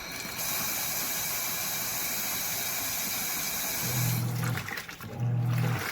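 Water rushing steadily, cutting off about four seconds in; short low hums then repeat about once a second.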